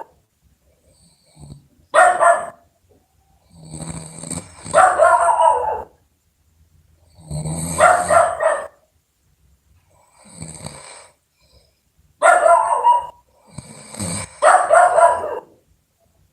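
Loud snoring: a run of rough, pitched snores, each about a second long, spaced irregularly with short quiet gaps and some coming in quick pairs.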